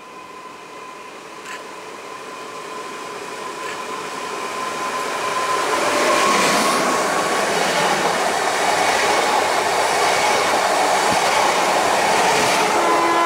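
Newag Impuls 45WE electric multiple unit pulling into the platform close by, its running noise swelling as the cab passes about six seconds in and staying loud as the cars roll by. Near the end, steady squealing tones come in as it brakes to a stop.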